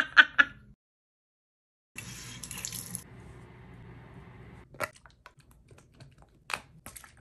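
A tap running into a bathroom sink for a few seconds, a steady rush of water. It is followed by a few light slaps of hands patting toner onto the face.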